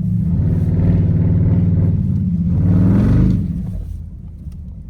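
Car engine revving hard, its pitch climbing about three seconds in, then letting off suddenly so the sound drops away.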